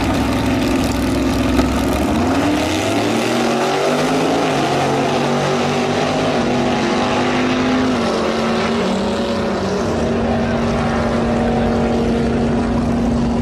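Two drag-racing cars, a Willys coupe and a 1956 Pontiac, launching off the line and running down the strip at full throttle. Their engines climb in pitch over the first few seconds and change as they shift, then hold one steady high note as the cars pull away.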